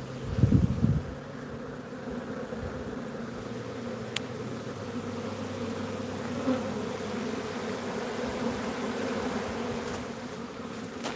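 Honeybee swarm buzzing, a steady, slightly wavering hum of many bees in the air and on the ground; the swarm is queenless and searching for its queen. A brief low thump about half a second in.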